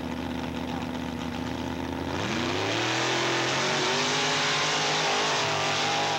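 Off-road race vehicles' engines running at the start line, then about two seconds in revving hard and climbing in pitch as they launch up the hill, held at full throttle with a loud rush of noise.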